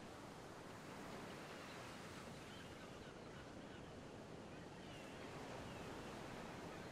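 Faint, steady wash of shallow sea water lapping at the shore, with a few faint bird calls in the distance.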